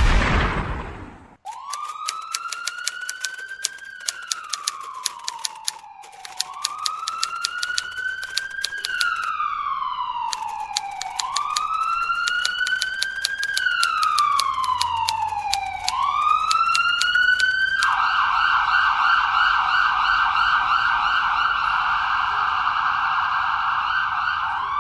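A siren wailing, rising and falling in slow cycles about every four and a half seconds, then switching to a fast yelp about three-quarters of the way through. Over the wail come rapid typewriter key clicks. A loud hit dies away in the first second.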